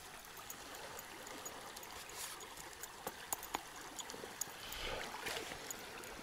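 Faint, steady flow of a small river running over a shallow riffle, with a few light clicks around the middle and a brief rustle about five seconds in.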